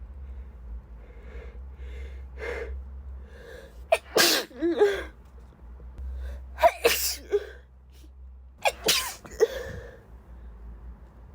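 A congested woman sneezing three times, about two seconds apart, after several short catching inhales as each sneeze builds.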